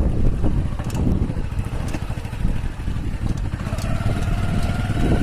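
Heavy, uneven low rumble of wind and handling noise on a moving phone microphone. A faint wavering high tone comes in after about three and a half seconds.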